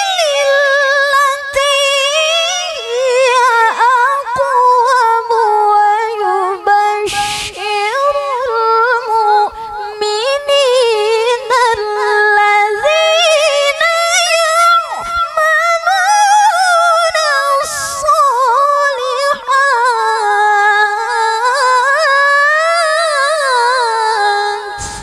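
A woman's voice reciting the Quran in melodic tilawah style into a microphone. She holds long melismatic phrases with wavering ornaments and takes two brief breaks between phrases. The recitation phrase ends right at the close.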